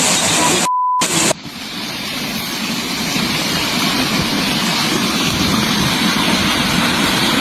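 A landslide making a steady, heavy roar that builds over a couple of seconds after a sudden cut. Just before the cut there is a short beep and a moment of silence.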